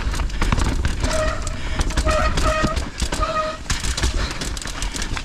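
Mountain bike riding down a rough trail: wind rushing over the helmet camera and the bike rattling and clattering over rocks and roots. About a second in, four short, steady tones sound over the noise.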